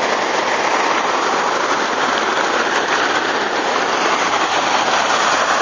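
Surf washing over sand at the water's edge: a steady hiss of foaming seawater.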